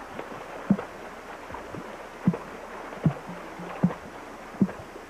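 A slow, regular series of five deep thuds, mostly about three-quarters of a second apart, over a steady hiss, with a short low held tone joining near the middle.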